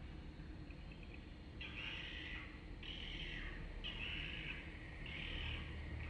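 Swiftlet calls: four chirping bursts of about a second each, spaced a little over a second apart, starting about a second and a half in.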